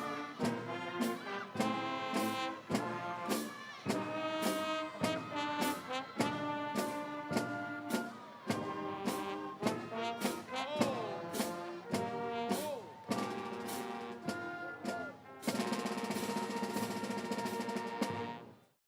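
Brass band music, trumpets and trombones over a steady drum beat, ending on a long held final chord that cuts off abruptly near the end.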